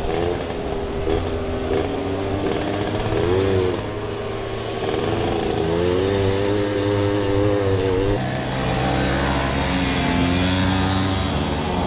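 Moped's small two-stroke engine running under throttle on a dirt track, its pitch rising and falling with the throttle: a brief rise about three seconds in, held higher from about five seconds, a sharp drop about eight seconds in, then climbing again near the end.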